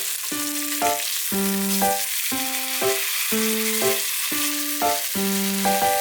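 Food sizzling steadily as it fries in a pan, under background music whose short phrase of plucked-sounding notes repeats about once a second.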